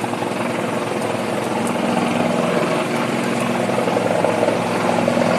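Sikorsky S-76C++ twin-turbine helicopter heard approaching: a steady turbine hum under fast rotor-blade chop, growing gradually louder.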